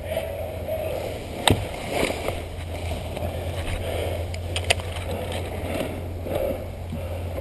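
Steady low rumble and rustling on the microphone, broken by a sharp click about a second and a half in and another near five seconds in.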